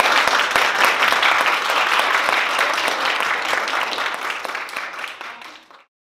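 Audience applauding: many hands clapping together, dying down gradually and stopping a little before the end.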